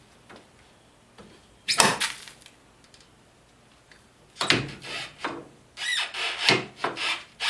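Tools and parts scraping during work on a UTV's front suspension, in short bursts: one about two seconds in, then a run of several from about four and a half seconds on, with a brief squeak near six seconds.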